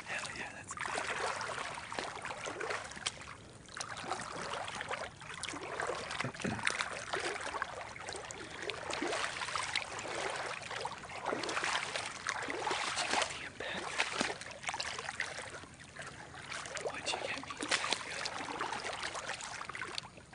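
Shallow swamp water sloshing and trickling in irregular surges, with splashy rustles coming and going.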